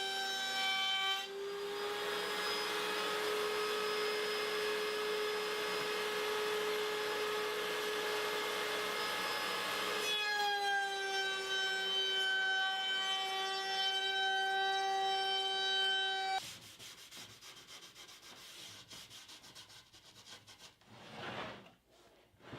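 A woodworking power tool runs with a steady whine, and from about a second in to about ten seconds a rushing noise of wood being cut is heard over it. The machine stops at about sixteen seconds, followed by quieter scraping and rubbing strokes on wood.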